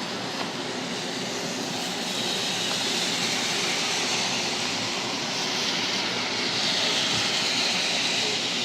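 Thunderstorm rain and wind: a steady rushing roar that swells twice.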